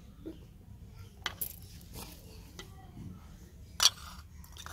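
Metal spoon clinking against clay bowls while yogurt is spooned onto rice: a few sharp clinks, the loudest near the end.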